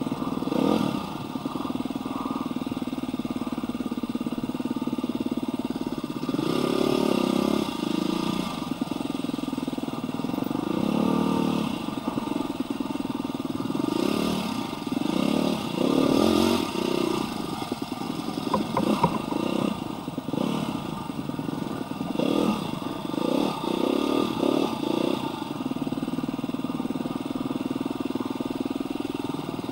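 Dirt bike engine heard from the rider's seat while riding, running steadily with several swells of throttle where it revs up and eases off, mostly in the middle stretch.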